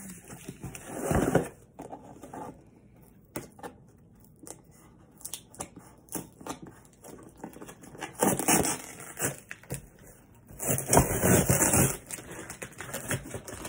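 Cardboard shipping box being opened and handled by hand: rustling, scraping and tearing in bursts, loudest about a second in, around eight seconds and around eleven seconds, with scattered light taps and clicks between.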